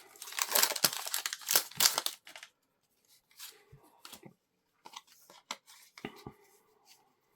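Foil Pokémon booster pack wrapper being torn open and crinkled for about two seconds, followed by quieter scattered rustles and light clicks as the cards are handled.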